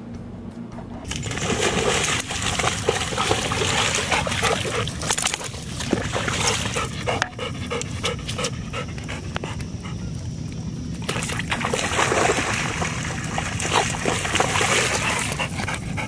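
Yellow Labrador retriever panting in shallow pond water, with water splashing and dripping around it. The sound starts about a second in and eases off for a few seconds in the middle.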